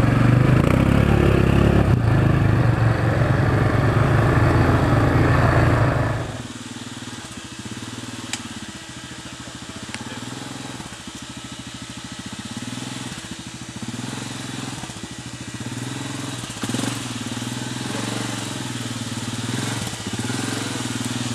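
Yamaha ATV engine running loudly under throttle. About six seconds in it drops abruptly to a much quieter running, with a slow repeating rise and fall.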